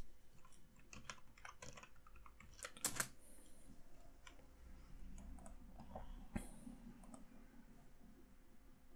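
Faint computer keyboard typing: a short run of key presses as a word is typed, the loudest key about three seconds in, followed by a few scattered clicks.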